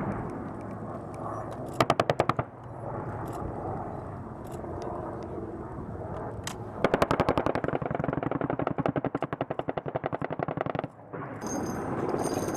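M2 .50 calibre heavy machine gun firing two bursts: a short one of about half a second roughly two seconds in, then a long one of about four seconds starting near the seventh second, with each shot distinct.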